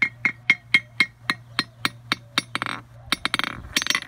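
Hammer tapped quickly on the face of a 125 kg Peddinghaus anvil, about four light strikes a second, each with a short, high ring, pretty quiet for an anvil because of magnets stuck to its body that damp the ring. Near the end the even taps give way to a few rougher clinking rattles.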